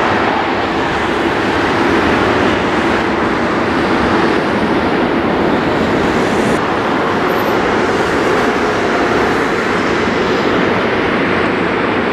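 Boeing 747-400F freighter's jet engines, heard as a loud, steady rumbling noise during its landing.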